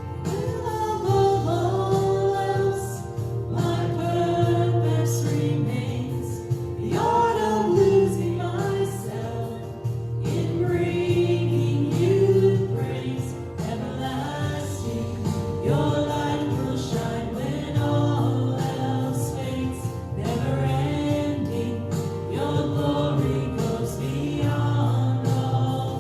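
Worship music: several voices singing a contemporary Christian song over a steady instrumental backing with a strong low bass.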